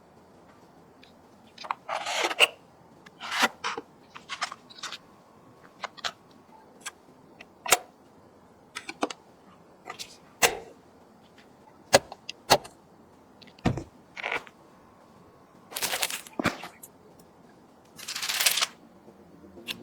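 Clicks, taps and short scrapes of computer parts being handled and fitted during a PC build, coming at irregular intervals, with two longer rustling scrapes near the end.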